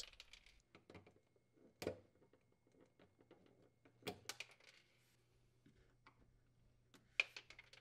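Near silence with a few faint, short plastic clicks as screw hole plugs are pried out of a refrigerator's evaporator cover.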